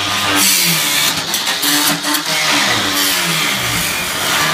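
Power tool grinding metal, its motor pitch wavering up and down under load, with bursts of harsh hissing noise during the first three seconds.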